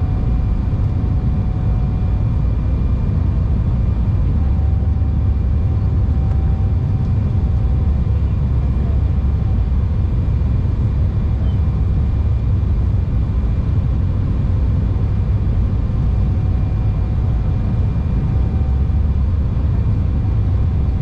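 Cabin noise of an Embraer E195 airliner in descent, heard from a seat by the wing: a steady low rumble of the turbofan engines and rushing air, with a faint steady whine on top.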